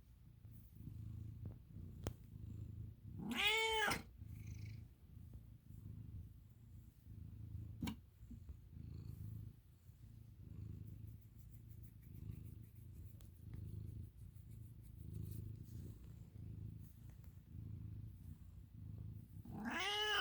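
American Ringtail cat purring steadily, with a meow about three seconds in and another at the end.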